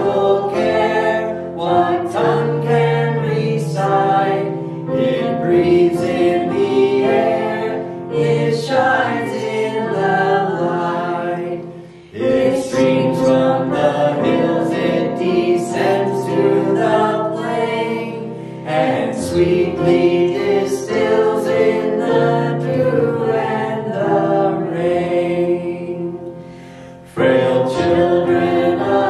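A small worship team of men's and women's voices singing a slow worship song together, in long phrases with short breaks about twelve seconds in and near the end.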